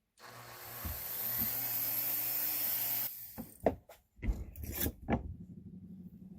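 Rotary tool with a carbide cutting wheel grinding a notch into a steel saw blade for about three seconds, picking up at the start and then stopping suddenly. A few sharp knocks and clatters follow.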